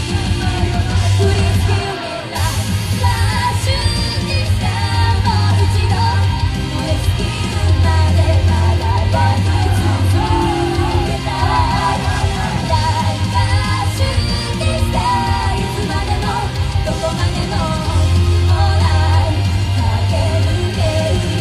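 Live performance of a loud rock-style pop song, with a woman singing into a handheld microphone and shouts mixed in. A heavy, steady bass line runs underneath and drops out briefly about two seconds in.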